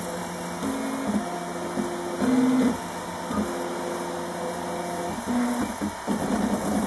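RepRap Mendel 3D printer's stepper motors whining while printing, in steady tones that jump to a new pitch every half second to a second as the print head changes moves.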